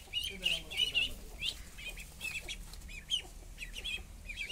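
Ducklings peeping: a rapid run of short, high peeps, several a second, with a lower falling call underneath in the first second.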